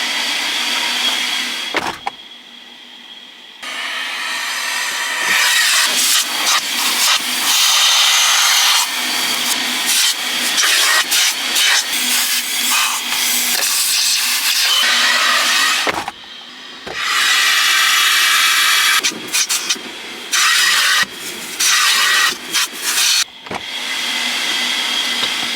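Automatic car wash heard from inside the car: loud rushing hiss of the wash's water spray and machinery over the car, cutting in and out several times as the car moves through.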